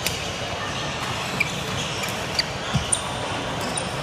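Badminton rally on a hardwood gym court: sharp racket strikes on the shuttlecock, the first right at the start, and several more clicks and a low thump of footfalls on the wooden floor, over the steady background noise of a large hall.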